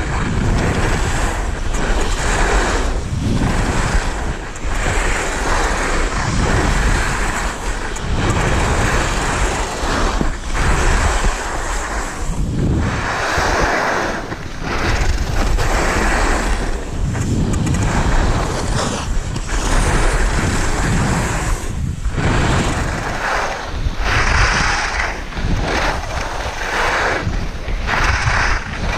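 Wind buffeting the microphone of a skier's moving camera, mixed with the hiss and scrape of skis running on packed snow, rising and falling with the turns.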